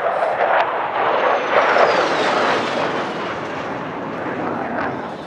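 Thunderbirds F-16 fighter jet flying past low, its loud engine noise carrying a whine that falls steadily in pitch as it goes by. The jet noise then eases off and fades near the end.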